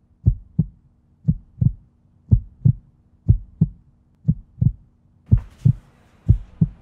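Heartbeat sound effect: a slow double thump, lub-dub, about once a second, over a faint steady hum. A little past five seconds in, a faint hiss of room noise comes in under the beats.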